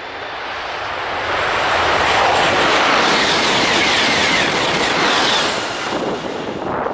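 TGV Réseau high-speed electric trainset passing close by at speed. The rushing rail and air noise builds over about two seconds, holds loud for a few seconds, and fades near the end as the train moves away.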